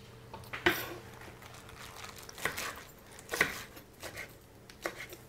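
A chef's knife cutting silver beet (Swiss chard) leaves on a wooden cutting board: a handful of separate, irregular chops, with the crinkle of the leaves being handled.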